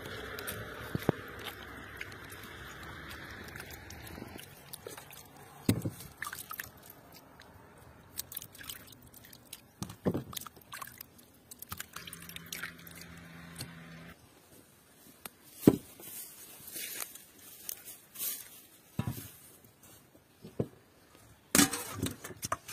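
Hands washing raw duck pieces in water in a stainless steel bowl: soft wet squelching and splashing with scattered clicks and knocks. Near the end come a few sharp metallic knocks as the bowl is tipped against another to drain.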